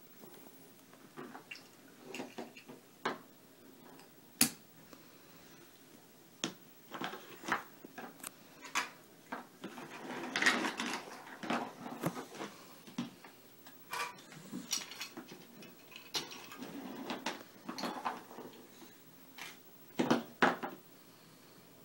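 Small plastic toys, building blocks and play food, clicking and clattering as a toddler picks them up, drops them and moves through them, in irregular knocks with a denser, louder stretch of rummaging around halfway.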